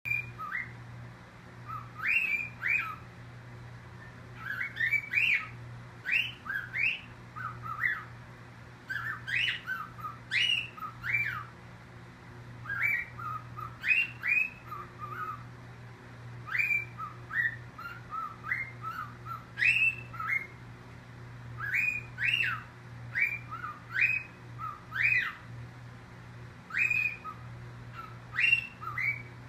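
Cockatiel calling non-stop in protest at being kept in its cage for the night: short, sharp sweeping chirps and whistled calls in quick clusters every second or two, over a steady low hum.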